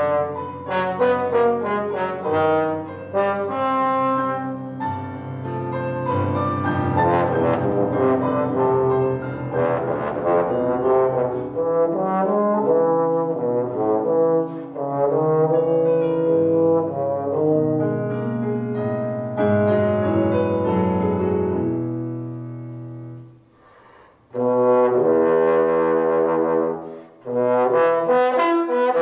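Solo trombone playing unaccompanied: one melodic line of quick runs and held notes, with a short break about three-quarters of the way through before it comes back in.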